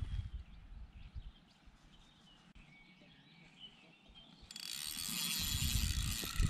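Spinning fishing reel's mechanism running with a steady, high-pitched ratcheting buzz that starts about two-thirds of the way in, over low wind rumble on the microphone. Before it, a quiet stretch with faint bird chirps.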